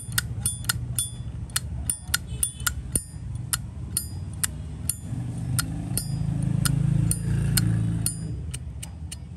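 Zippo lighter lid being flicked open and snapped shut over and over: sharp metallic clicks with a bright ring, two or three a second, thinning out near the end. A low rumble swells in the background in the middle and fades.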